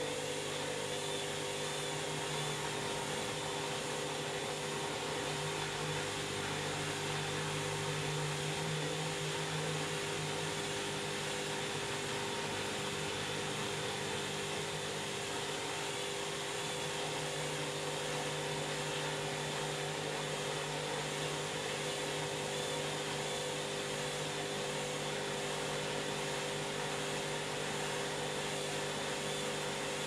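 Candy front-loading washing machine spinning steadily: a constant motor whine and hum over an even rushing hiss.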